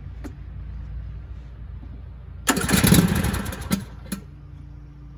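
John Deere E100 lawn tractor's engine cranking on the electric starter for just over a second, starting about halfway in and cutting off abruptly, followed by a single click.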